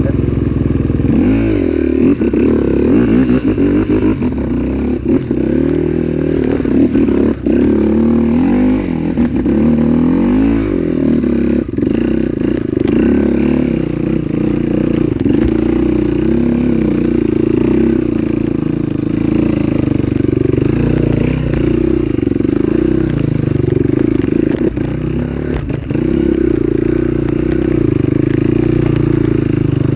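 Trail motorcycle engine running under load, revving up and down repeatedly in the first half, then holding a steadier pitch.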